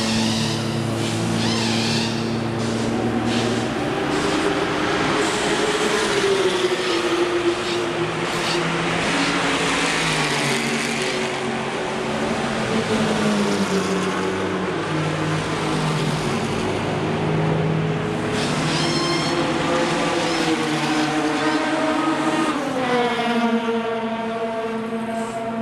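Several race car engines running and passing one after another, their pitches overlapping and gliding up and down, with one car passing close near the end.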